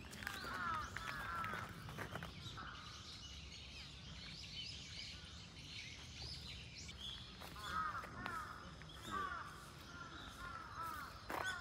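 Birds calling in the trees: runs of short calls that rise and fall, coming in clusters, strongest at the start and again over the last few seconds, with a few footsteps crunching on a gravel path.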